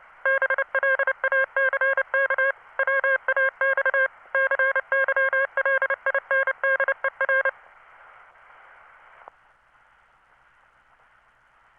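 Morse code from a text-to-Morse converter: a single-pitch beep keyed on and off in dots and dashes, stopping about two-thirds of the way through. Faint hiss follows.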